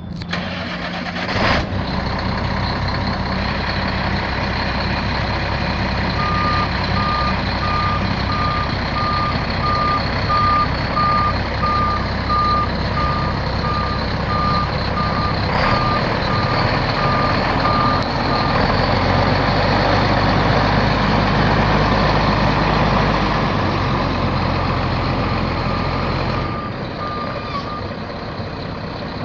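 The Mack 12.0-litre inline-six turbo diesel of a 2002 Mack semi truck running, with the truck's backup alarm beeping at a regular pace from about six seconds in until near the end. A brief sharp noise comes about a second and a half in. The engine grows louder past the middle and eases off near the end.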